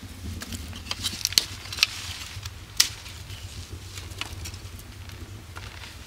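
Small twig fire crackling and snapping in an earthen fireplace, with light wooden knocks as dry sticks are pushed into it. The snaps are irregular, with a few sharper pops around a second and a half and three seconds in.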